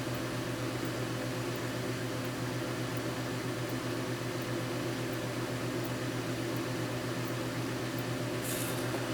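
Steady electrical hum with a fan-like whir, unchanging throughout, with a brief soft rustle near the end.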